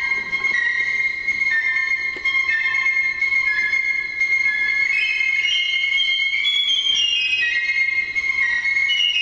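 Piccolo playing a slow melody of long held high notes, climbing higher in the middle before settling back down.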